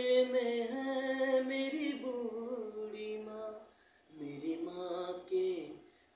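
A man singing unaccompanied, holding long notes that glide slightly in pitch. There are two phrases, with a brief silent breath between them about four seconds in.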